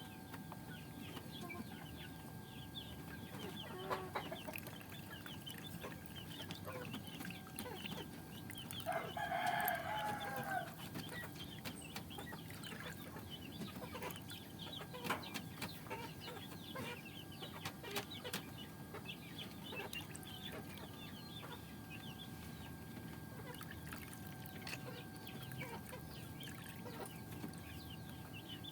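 Chickens clucking, with one longer, louder call about nine seconds in that sounds like a rooster crowing.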